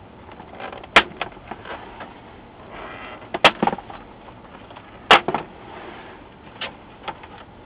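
Plastic front bezel of a Dell 1907FP LCD monitor snapping loose from its catches as it is lifted and twisted: three loud, sharp snaps a couple of seconds apart, each followed by a smaller click, and one fainter click near the end.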